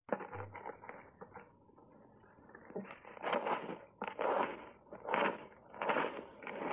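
Block ice coated in matcha and milk powder bitten and crunched between the teeth: about five loud, dry crunches, roughly one every 0.7 s, starting about three seconds in. Before that, light scraping and clicks as the ice is picked up from a plastic tub.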